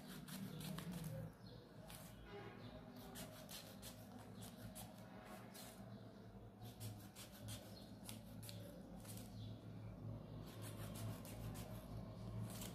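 Scissors cutting a row of strips into a folded sheet of paper: a string of faint, short snips with the paper rustling.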